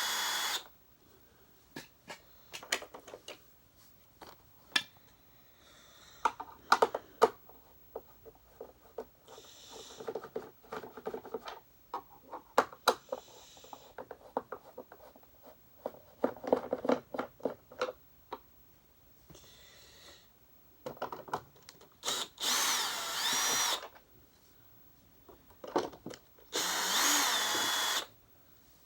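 Power drill-driver running in three short bursts, as at the screws of a vacuum cleaner's housing: one ending just after the start, one about 22 seconds in with its whine rising and falling, one about 27 seconds in. Between them, scattered clicks and knocks of screws and plastic parts being handled.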